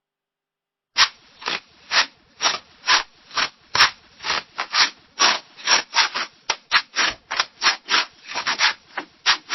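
Scissors cutting through paper: a run of short, crisp snips, about two a second, starting about a second in and coming quicker near the end.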